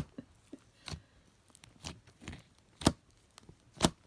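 Homemade slime of PVA glue, clay and pom-pom fluff being poked and squeezed, giving a few sharp crackling pops from trapped air at uneven intervals, the loudest two near the end.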